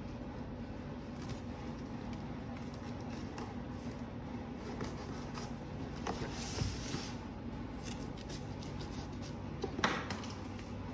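Box cutter scraping and slicing packing tape on a cardboard box, the tape rasping as it is pulled off about six seconds in and a sharp scrape near the end, over a steady low hum.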